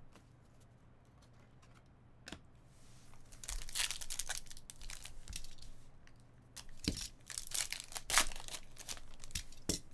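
A plastic trading-card pack wrapper being torn open and crinkled, with the cards shuffled out. There are irregular crackling bursts and sharp clicks, starting about three seconds in after a quiet stretch.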